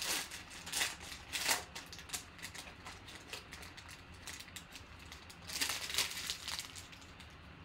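Foil trading-card pack wrapper crinkling as it is torn open and peeled off the cards, in a series of sharp crackles, with a second burst of crinkling about six seconds in.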